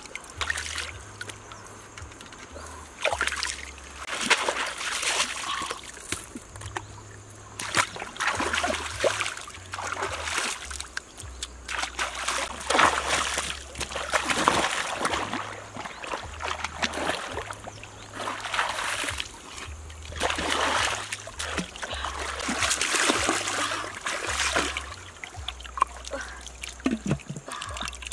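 River water splashing and sloshing in irregular bursts, stirred by hands in the shallows.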